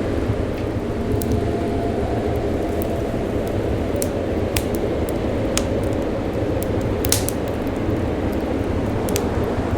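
Wood fire crackling in a fireplace: scattered sharp pops and snaps, a few close together about seven seconds in, over a steady low rumbling background.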